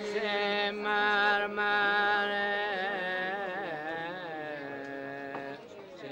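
Slow, ornamented chant-like singing: a voice winds through wavering melodic turns over a steady held drone note, dropping away briefly near the end.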